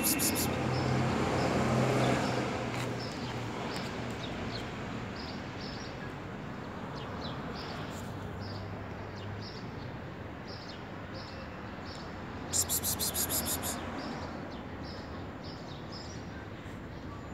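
A person calling a cat with a rapid, hissing "pspsps", briefly at the start and again louder for about a second roughly twelve and a half seconds in. Between the calls there is faint, repeated chirping over a low, steady hum.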